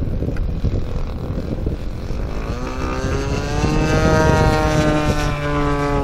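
Seagull Models Extra 260 radio-controlled aerobatic plane's motor and propeller droning in flight, with a low wind rumble on the microphone. Its tone comes in strongly about two and a half seconds in, rising in pitch and growing louder as the plane closes in, then sinks slightly near the end.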